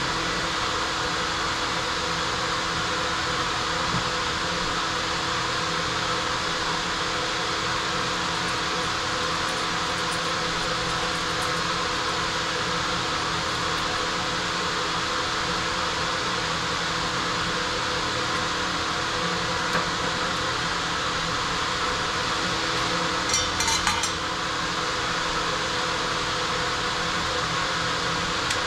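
Self-service car wash high-pressure wand spraying steadily, a constant hiss of water over the steady hum of the wash pump. A short run of clicks comes late on.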